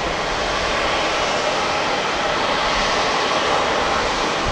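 Airbus A350-900's Rolls-Royce Trent XWB turbofan engines running steadily as the airliner taxis, giving an even jet rush.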